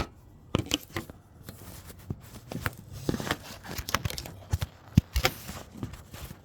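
Irregular small clicks and knocks of metal parts being handled as a bolt is fitted on a car's negative battery cable, the sharpest knock about five seconds in.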